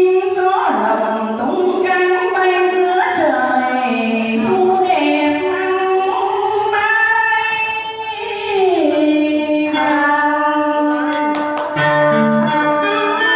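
A woman singing a slow, ornamented melody with sliding notes, with instrumental accompaniment.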